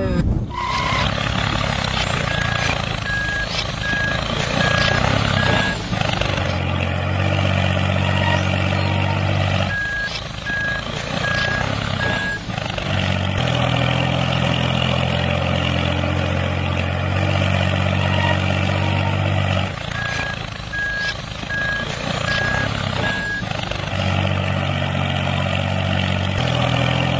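Heavy vehicle engine running steadily, with a reversing alarm beeping in three spells of a few seconds each.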